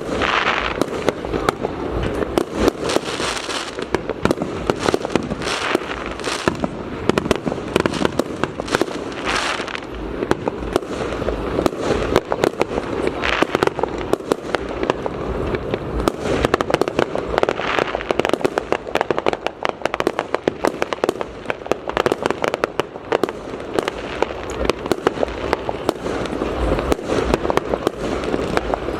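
Fireworks display: a dense, continuous stream of bangs and crackling, with brighter hissing swells every few seconds.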